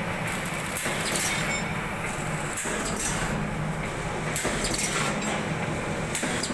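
Vertical form-fill-seal pouch packing machine running, forming a printed film tube into pouches: a steady mechanical hum broken by repeated clicks and clacks as it cycles.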